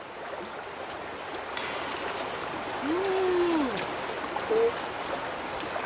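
Steady rush of river water. About three seconds in, a faint drawn-out call rises, holds and falls away, followed by a short higher call.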